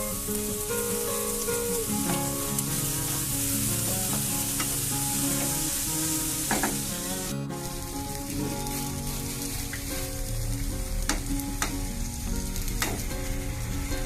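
Food frying and sizzling in a pan as it is stirred. The hiss is strong in the first half and drops abruptly just past halfway, after which a few sharp clicks stand out.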